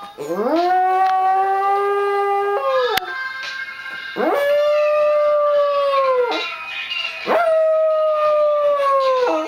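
Small long-haired pet dog howling in three long drawn-out howls, each sliding up at the start, held at a steady pitch, then dropping away at the end. The dog is howling along to a song, the way it does as 'singing'.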